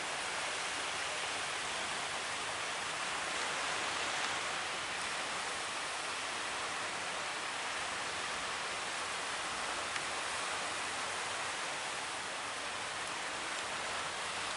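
Steady rush of ocean surf breaking on the shore.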